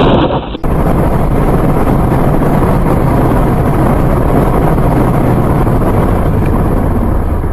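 Loud, steady wind buffeting and road rumble on a dashcam microphone in a car moving at speed. It is preceded by a short, loud burst that cuts off abruptly about half a second in.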